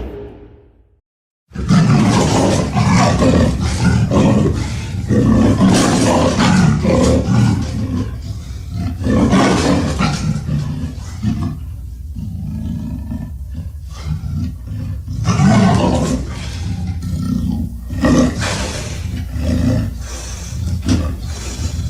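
A monster roar sound effect made for Sulley: a long run of big-cat-like roars, one after another and swelling and easing in waves, starting about a second and a half in after a brief silence.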